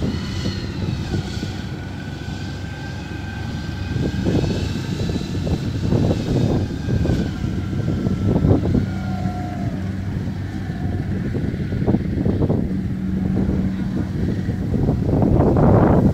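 Engine of a small tracked rice-hauling carrier running steadily as it drives across the harvested paddy loaded with sacks of grain. A faint higher whine drifts slowly in pitch in the background.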